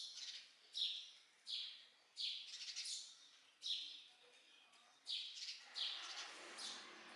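A bird calling over and over with short, high chirps, roughly one every three quarters of a second, some in quick doubles. A steady hiss comes in near the end.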